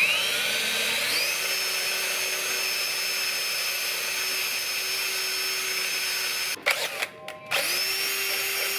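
Electric drill boring a small pilot hole through metal with a metal-drilling bit. The motor whine rises as it spins up over about a second and then runs steadily. It stops briefly about two-thirds of the way through, then spins up again.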